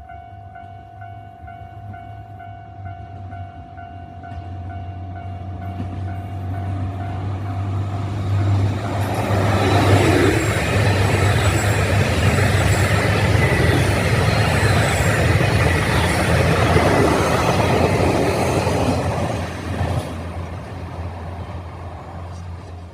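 Level crossing warning bell ringing with a repeating chime, then a KiHa 261 series diesel train approaching and passing close by. The diesel engines' low hum and the wheels on the rails build up, stay loud for about ten seconds, and fade near the end.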